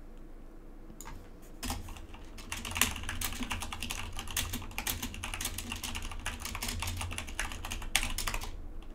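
Fast typing on a computer keyboard: a quick, uneven run of key clicks that starts about two seconds in and goes on nearly to the end.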